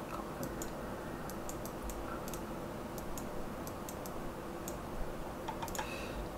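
Scattered light, irregular clicks of a computer mouse and keyboard, over a steady hiss and hum from the microphone.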